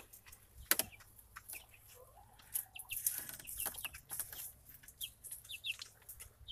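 Two-week-old Red Ranger broiler chicks peeping: scattered short, high, falling peeps, with light clicks and rustles among them.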